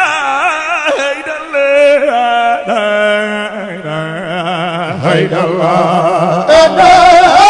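A man chanting a Sufi zikr solo into a microphone, his voice amplified and wavering through long ornamented notes, with a low note held steady beneath it. The sound grows louder and fuller near the end.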